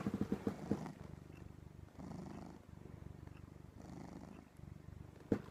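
Domestic cat purring close to the microphone, a fast low rumble that swells and eases about once a second with its breathing. A short knock sounds near the end.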